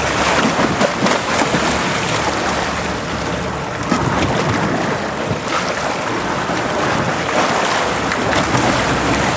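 Water splashing and churning as a hooked bluefin tuna thrashes at the surface beside a boat hull, over steady sea and wind noise on the microphone.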